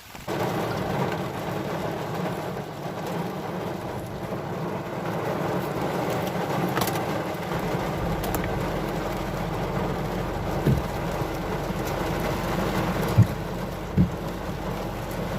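Ten-wheel truck's diesel engine running under way, heard from inside the cab, with rain beating on the truck. Three short sharp knocks come in the last few seconds.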